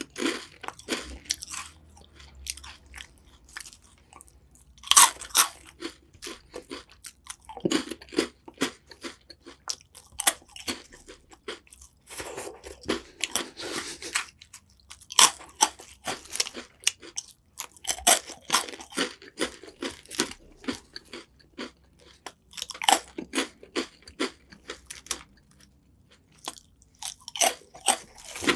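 Close-miked crunching and chewing of crisp, ribbed puffed snack sticks, in runs of crackly bites with short pauses between.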